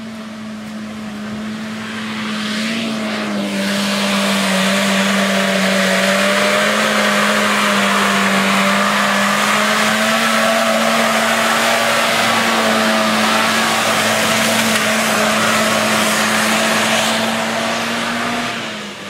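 Small four-wheel-drive's engine held at steady high revs as it drives up a muddy bush track, with tyres churning through the mud. It grows louder as the vehicle comes close, holds, then fades near the end.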